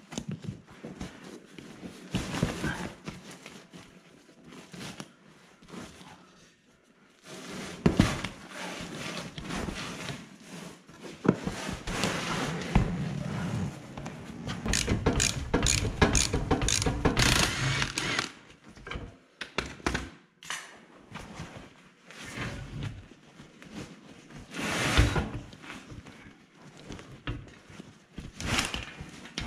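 Rustling and knocking as a pickup truck seat is taken apart by hand: the fabric seat cover and foam cushion being pulled and shifted, with irregular clicks and thunks from the metal seat frame and plastic trim.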